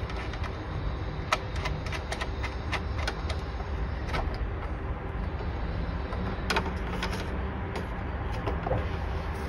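Scattered light clicks and taps from handling a Wi-Fi antenna and its cable on a DIN-rail energy meter, over a steady low hum.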